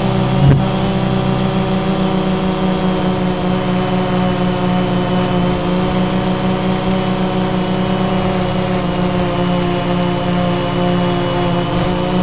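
Drone's motors and propellers humming steadily as heard from its on-board camera, a held chord of several steady tones. A faint click about half a second in.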